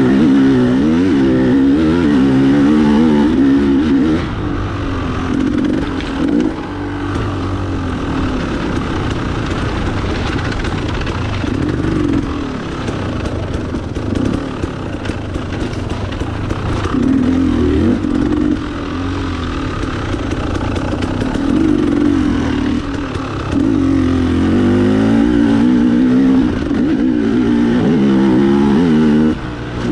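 Dirt bike engine ridden off-road at an enduro, revving up and falling back over and over as the throttle is opened and closed, with its pitch wavering. It drops off briefly a few times, around 4 and 12 seconds in and just before the end.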